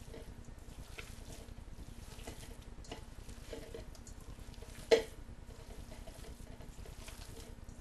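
Hands squishing through raw ground beef, beaten egg, marinara and chopped onion in a bowl, making soft, irregular wet squelches. There is one sharp knock about five seconds in.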